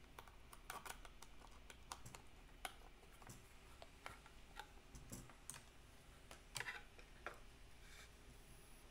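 Faint, irregular clicks and taps of computer keyboard keys, sparse and unhurried, over a quiet room.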